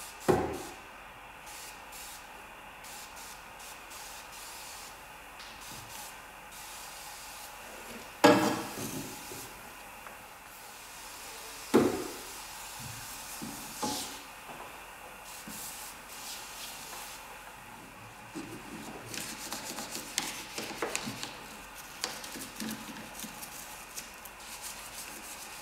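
An aerosol foam cleaner (Scrubbing Bubbles) is sprayed in a few short hissing bursts, the longest trailing off over about two seconds. Near the end comes a toothbrush scrubbing foamed engine-bay parts in quick, scratchy strokes.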